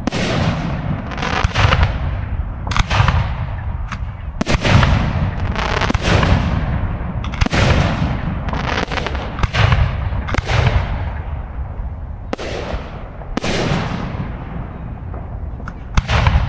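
Aerial fireworks shells bursting in a steady barrage: sharp bangs about once a second at uneven spacing, each trailing off in a fading hiss, over a continuous low rumble.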